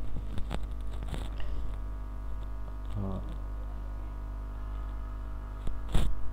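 Steady electrical hum on the recording, with a few light clicks in the first second or so and a brief vocal murmur about three seconds in. A sharp, loud click comes near the end.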